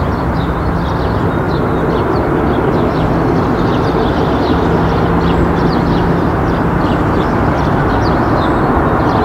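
Steady, loud roar of a jet airliner's engines on final approach, growing slightly louder, with a few steady tones in it.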